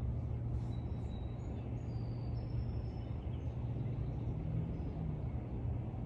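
Steady low outdoor rumble. A few faint, short, high bird whistles come in during the first half.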